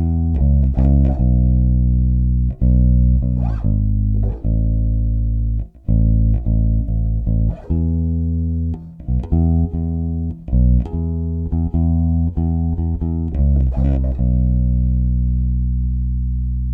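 Sterling by Music Man Ray4 electric bass played through a Tone Monster SBK-3D active preamp: a run of plucked, sustained notes, the last one, about fourteen seconds in, left to ring and slowly fade.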